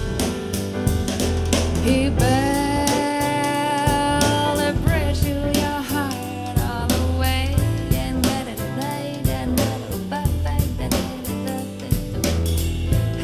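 A song played back as an in-ear monitor sound demo: a singer holds long, bending notes over drum kit, bass and guitar.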